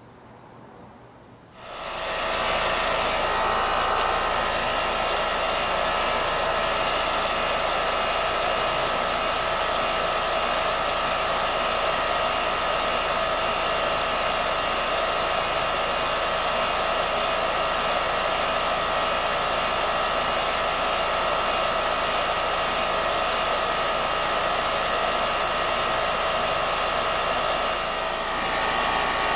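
A motor-driven machine starts up about a second and a half in and runs steadily, a constant whirring noise with a steady whine over it.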